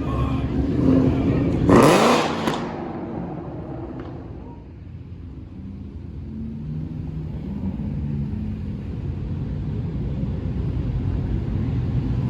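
A car engine revs loudly about two seconds in, then a low engine rumble carries on, fading and building again toward the end.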